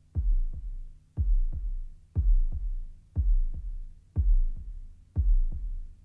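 Background music: an electronic beat like a heartbeat, a deep bass thump followed by a lighter second hit, repeating about once a second.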